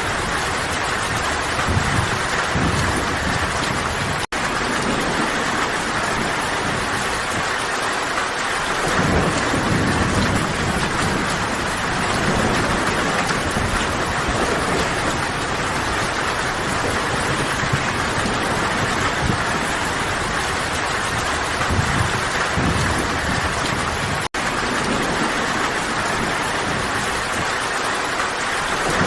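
Steady heavy rain, with low rumbles of distant thunder swelling and fading a few times. The sound cuts out for an instant twice, about four seconds in and near the end.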